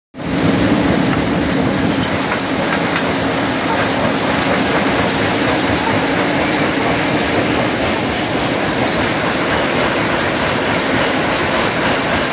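Stone crushing plant running: jaw crushers and belt conveyors at work, a loud steady mechanical din with a low hum that is strongest in the first couple of seconds.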